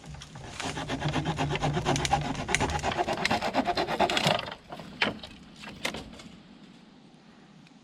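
A small saw blade cutting wood in a quick run of rapid, even strokes lasting about four seconds. Then two sharp cracks, about a second apart.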